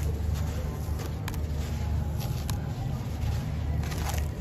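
A dry sand-cement chunk crumbling in the hand, with grit and dust falling into a tub and a few sharp crunches, over a steady low rumble.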